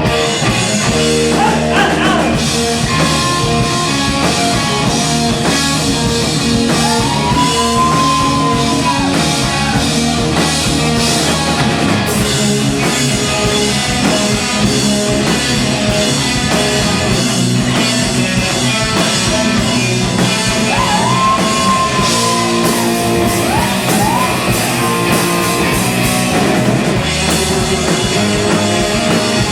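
Rock band playing live with electric guitar and drum kit, with no singing. A few long, bending lead notes rise and fall over the steady band.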